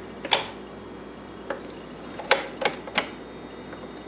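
Sharp plastic clicks from the rotary ON/OFF/AUTO selector knob of a GE Spacemaker kitchen clock radio being turned through its positions. There is one click, a faint one about a second later, then three in quick succession about two seconds in.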